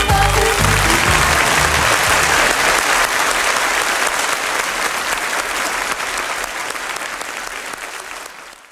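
Studio audience applauding as the band's last notes die away in the first second. The applause then slowly fades out toward the end.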